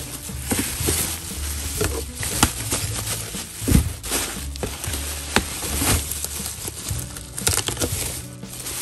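Plastic bubble wrap crinkling and crackling as hands handle it and pull it away from a tablet, with many irregular sharp crackles.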